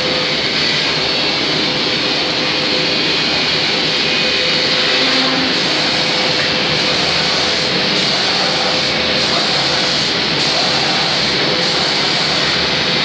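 Automatic spraying machine painting a wooden door with PU paint: a loud, steady rush of compressed-air spray and booth air. The highest hiss dips briefly about every 1.2 seconds, an even rhythm through the whole stretch.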